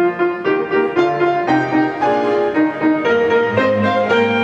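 Classical-style background music led by piano, with a quick run of notes.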